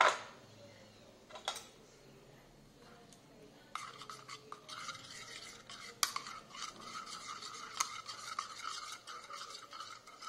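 Metal ladle stirring sauce in a ceramic bowl, scraping and clinking against the bowl. A sharp clink at the start and another about a second and a half in, then steady stirring with frequent light clinks from about four seconds in.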